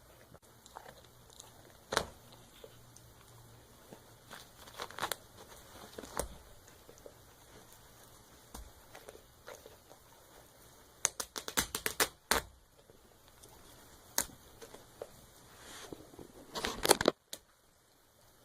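A dog tearing at a stuffed toy with its teeth: irregular sharp rips and crinkling, with a quick flurry about eleven seconds in and another, the loudest, near the end.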